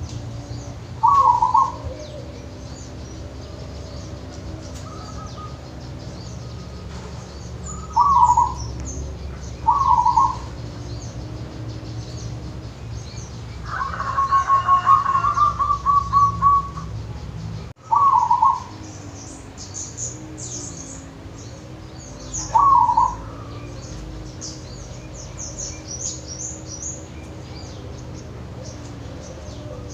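Local-strain zebra dove (perkutut) cooing: about five short, loud coos spread through, and a fast run of repeated staccato notes near the middle. Other birds chirp faintly and high-pitched in the second half, over a low steady hum.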